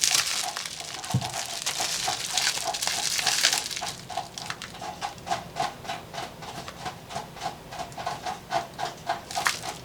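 Small pet dog making a quick rhythmic sound, about three to four short pulses a second, like panting, that keeps on steadily and then stops near the end.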